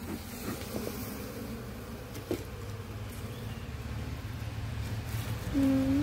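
Honeybees humming steadily from an opened wooden hive box full of comb, with one sharp knock about two seconds in. Near the end a louder, short wavering pitched call cuts in over the hum.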